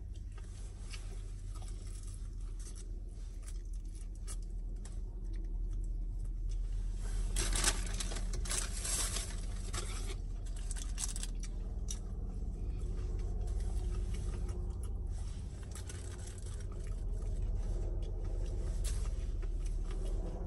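Close-up eating sounds of crispy fried chicken: chewing and crunching, with the breading and meat being torn apart by hand, in scattered crackles, busiest about a third of the way through. A low steady hum runs underneath.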